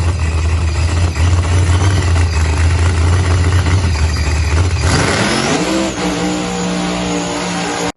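LS V8 engine in a Chevrolet Silverado running hard and steady. About five seconds in, a surge comes through and the engine's pitch climbs, then holds higher. The sound cuts off abruptly at the end.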